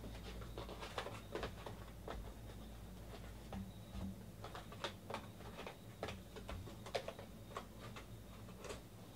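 Trading card hobby boxes being unwrapped and opened by hand: plastic shrink-wrap crinkling and a cardboard lid and packaging handled, giving a string of irregular light clicks and rustles.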